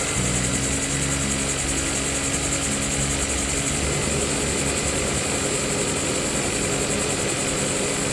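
2018 Volkswagen Jetta's 1.4-litre turbocharged four-cylinder engine idling steadily.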